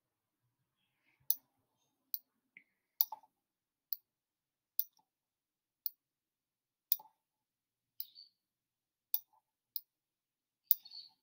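About a dozen sharp clicks of a computer pointer button, roughly one a second and irregularly spaced, as short brush strokes are dabbed on in a digital paint program.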